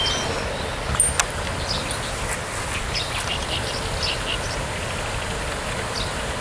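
Outdoor ambience: a steady rushing noise with short bird calls scattered through it, and a couple of sharp clicks about a second in.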